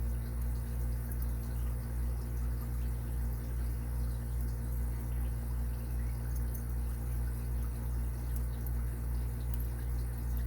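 A steady low hum with a slight regular pulse, under a few faint light ticks from a lock pick working the pins of an Abus 80Ti padlock.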